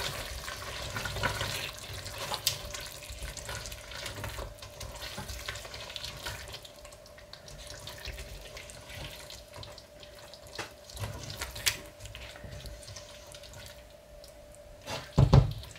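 Silicone spatula stirring thick, wet curry in a stainless steel pot: soft squelching and scraping with scattered light clicks, under a faint steady hum. A few louder knocks against the pot come near the end.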